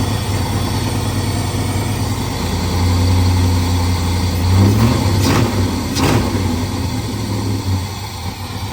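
Car engine idling just after starting, loud and rough with an exhaust leak where the header has been cut off. The revs rise slightly about halfway through, and two sharp knocks follow close together.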